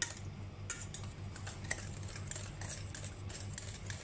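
Wire whisk beating yogurt in a stainless steel bowl: quick, irregular clicks and scrapes of the wires against the metal, over a low steady hum.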